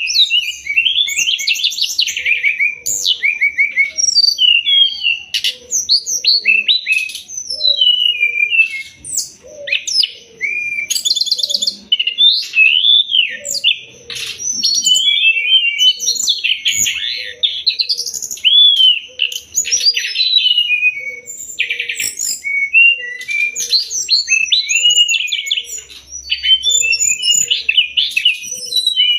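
Brown-chested jungle flycatcher (sikatan rimba dada coklat, SRDC) singing a fast, varied song of high chirps, trills and sliding whistles, almost without a pause.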